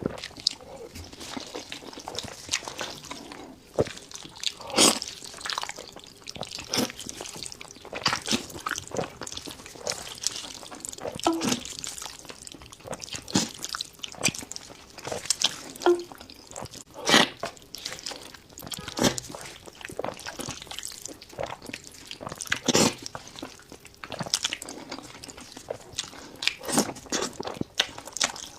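Close-up eating of seafood: irregular wet smacks, slurps and crunchy clicks of biting and chewing.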